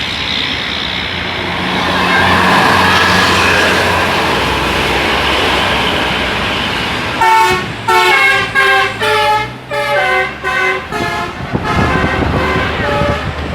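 Bus engine and road noise, then from about seven seconds in a Basuri telolet horn, a multi-note bus air horn, plays a quick run of short notes stepping up and down in pitch.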